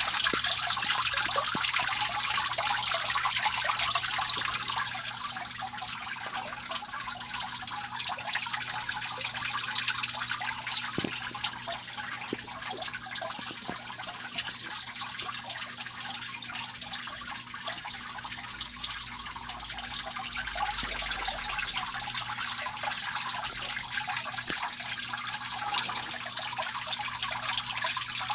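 Synthetic rainfall system in a reptile enclosure, water falling and dripping steadily onto soil and plants as a continuous hiss. It gets somewhat quieter about five seconds in, with a faint low hum underneath.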